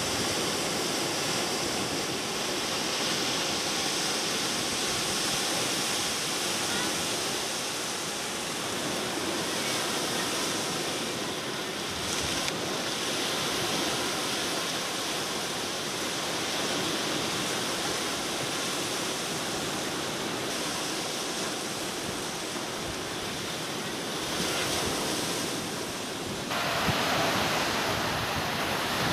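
Gulf of Mexico surf washing steadily onto a sandy beach, a continuous rush of breaking waves. The sound changes abruptly near the end.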